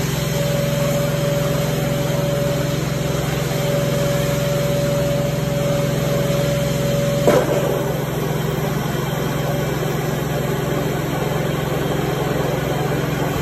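Steady hum of a rotary tile-cleaning tool and its hose-fed extraction system running. A steady whistle over the hum cuts off with a click about seven seconds in, while the machine hum carries on.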